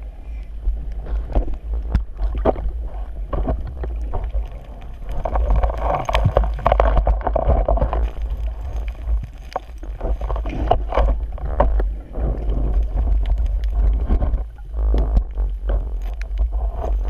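Underwater noise through a GoPro camera: a constant low water rumble with many scattered clicks and scrapes as shelly sand is dug by hand, swelling louder for a few seconds in the middle.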